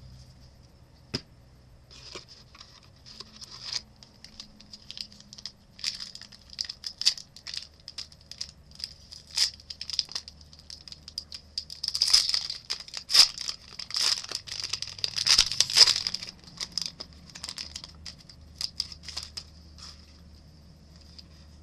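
Trading card pack wrapper being torn open and crinkled while the cards are handled: a run of crackling and rustling that is thickest and loudest from about 12 to 16 seconds in, then dies down.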